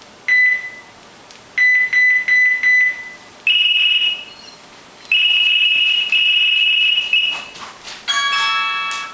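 Cell phone ringtones played one after another: a single beep, then a quick run of about four beeps, then two higher electronic ring tones, the second one longer. Near the end comes a short multi-note ringtone melody.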